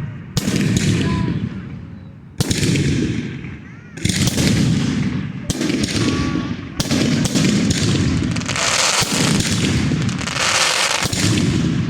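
Fireworks going off: a loud bang every second or two, each trailing off in a long crackling rumble, with a few short whistles between them.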